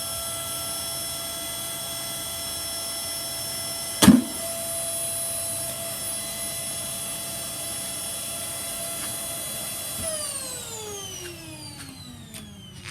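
Shark Rotator vacuum cleaner's motor running with a steady high whine, and one loud knock about four seconds in. About ten seconds in it is switched off and the whine falls in pitch as the motor spins down.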